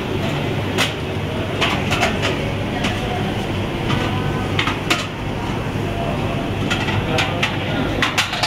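Restaurant ambience: a steady hum with frequent sharp clinks and clicks of utensils and dishes, and faint chatter in the background.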